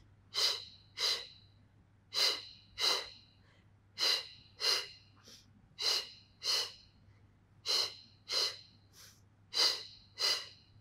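A person's short, sharp breaths in pairs, about one pair every two seconds, keeping pace with side-lying Pilates scissor leg kicks.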